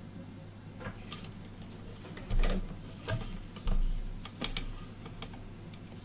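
Handling noise of small wires and a plastic fan connector being fiddled with on a desk: a scatter of light clicks and taps, with two heavier thumps a little over two seconds in and just under four seconds in. The fan itself is not running.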